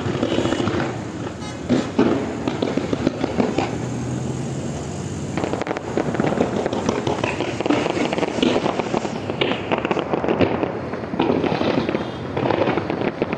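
Aerial fireworks going off: a few sharp bangs in the first seconds, then from about five seconds in a dense run of rapid crackling pops.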